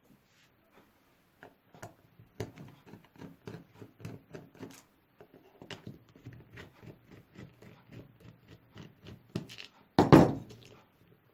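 A soldering iron being taken apart by hand: many small irregular clicks and rattles of plastic and metal parts, with one loud knock near the end.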